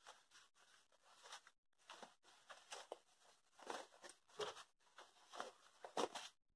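Faint rustling and crinkling of cotton fabric and its non-woven (TNT) lining being turned right side out by hand, in many short, scattered bursts.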